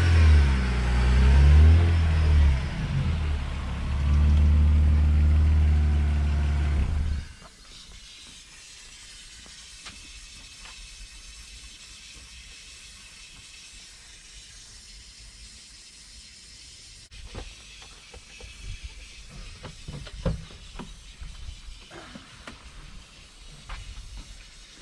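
BMW E46's M54B25 straight-six running loud and close, its pitch rising and falling, then cutting off abruptly about seven seconds in. A faint steady hiss follows: steam escaping from the overheated engine bay, where a coolant hose has burst. Scattered clicks and knocks come near the end as the driver's door opens.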